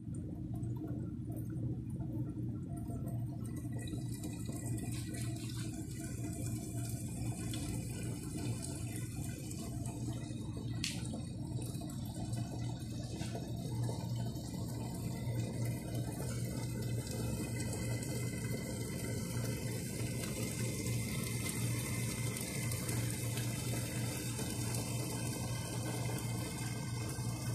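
Mutton curry simmering uncovered in a pan, a steady bubbling hiss with a low hum under it.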